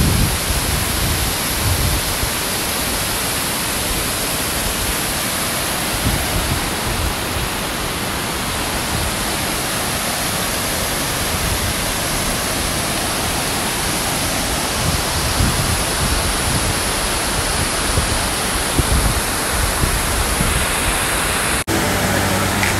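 Steady rushing of Bridal Veil Falls, a broad waterfall cascading over a rock face, together with the fast creek below it tumbling over rocks and logs. The water noise cuts out briefly near the end.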